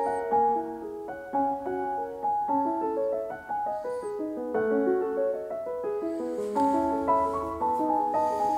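Background piano music, a melody of separate notes following one another at a few notes a second.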